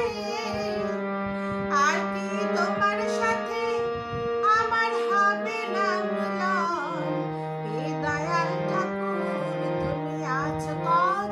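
A woman singing a Bengali devotional song to her own harmonium accompaniment: the harmonium holds steady reed chords while her voice moves above in ornamented, gliding phrases, the chord dropping lower about two-thirds of the way through.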